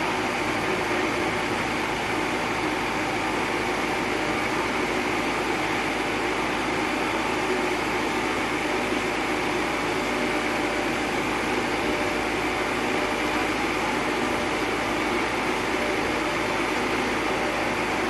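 Crawler-mounted hydraulic auger drilling rig running steadily as its auger bores down into soil, an even machine noise with no breaks or changes.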